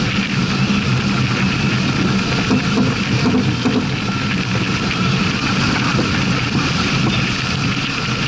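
Steady rush of wind and water as a sailing yacht sails heeled through choppy water, with wind buffeting the microphone.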